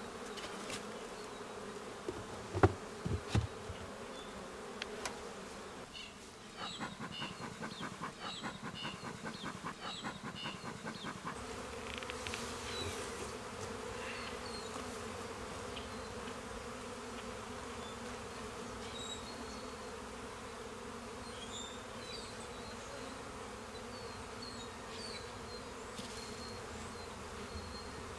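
Honeybees humming steadily around an open hive. A few sharp knocks come about three seconds in, and a quick run of short strokes follows from about six to eleven seconds.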